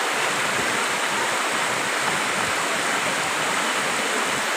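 Waterfall pouring into a pool, a steady rushing noise with no change.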